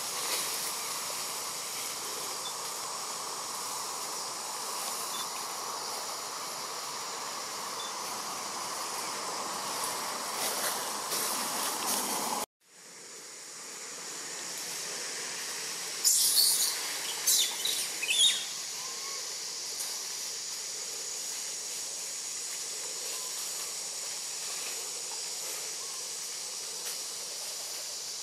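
Steady hissing insect chorus of tropical forest. It cuts out abruptly a little before halfway and fades back in. A few seconds later comes a brief cluster of loud, sharp, high sounds.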